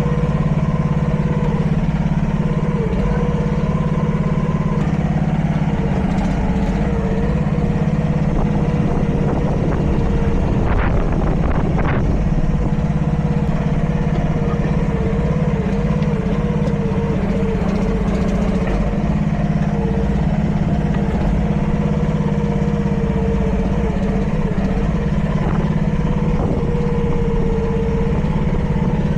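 Mini excavator's small 26 hp lawnmower-type engine running steadily while it drives the hydraulic pump, its tone wavering as the hydraulics take load. A couple of sharp knocks about eleven and twelve seconds in.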